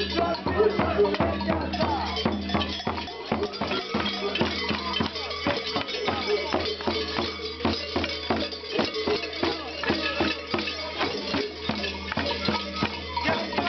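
Many bells worn by costumed Malanca mummers clanging together in a fast, even rhythm as the dancers stamp and jump in step.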